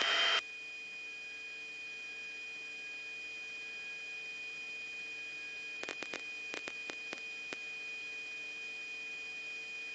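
Steady electrical tone and hum on a radio or intercom audio line, one high whine above a lower hum. A quick run of a few sharp clicks comes around the middle.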